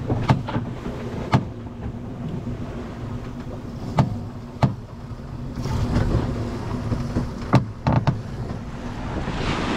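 Sailboat under way in rough seas, heard from inside the cabin: a steady rush of wind and water over a low steady hum, with sharp knocks every second or few. The rush swells around six seconds in and again near the end.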